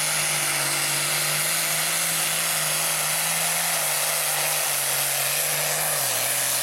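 Diesel pulling tractor engine running flat out as it drags the weight sled, a loud steady mechanical sound whose pitch dips slightly about six seconds in.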